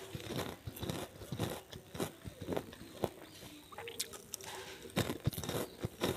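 Close-miked chewing of crisp kerupuk crackers: irregular crunches and crackles as the cracker is bitten and chewed, a little louder about five seconds in.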